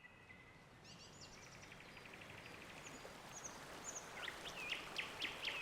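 Wild birds calling over a faint, steady outdoor background noise that slowly swells. A rapid trill comes about a second in, then short high whistles, and a run of sharp sweeping chirps grows louder near the end.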